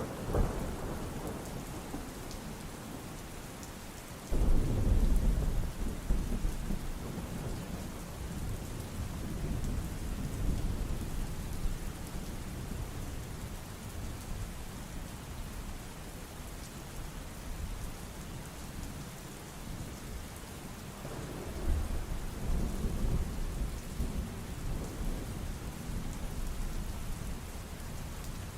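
Steady rain with rolling thunder: a low rumble breaks in suddenly about four seconds in and dies away, and a second one builds near the end.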